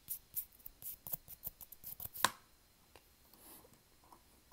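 A quick run of crisp clicks and rustles close to the phone's microphone from fingers moving right at it, with one louder click about two seconds in. Quieter rustling follows.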